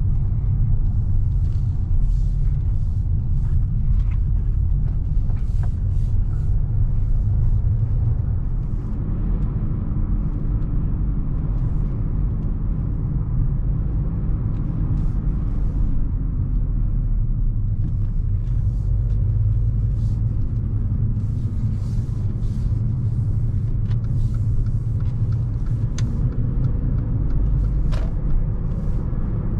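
Mercedes-Benz GLA250's 2.0-litre turbocharged four-cylinder petrol engine and road noise heard on board while driving: a steady low rumble that eases for several seconds in the middle, then builds again.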